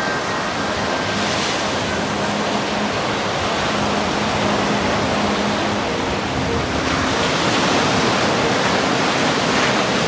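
Gulf surf breaking and washing up a sandy beach, a steady rush of water that swells louder toward the end as the waves come in close.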